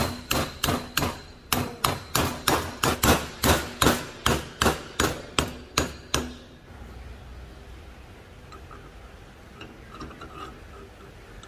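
Steel hammer tapping a round steel pin into the face of a four-jaw lathe chuck body: about three metal blows a second, each ringing briefly, for some six seconds, then stopping. Faint clinks of parts being handled follow.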